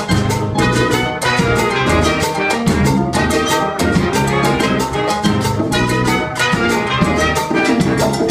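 Latin big band of horns and percussion playing a salsa arrangement live: piano, congas and timbales over a steady, busy beat.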